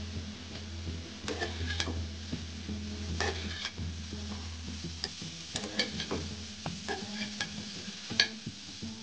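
A spatula stirring and scraping boiled cauliflower florets as they fry in a little mustard oil in a frying pan, in irregular clinks and scrapes. A low steady hum runs underneath and stops about five seconds in.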